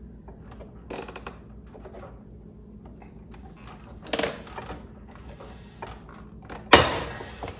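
Hand pop-rivet gun squeezed to set a pop rivet: a couple of short crunching strokes, then a sharp, loud snap near the end as the rivet's mandrel breaks off and the rivet is set.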